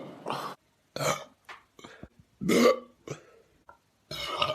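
A person burping on command in a series of short belches, the loudest about two and a half seconds in.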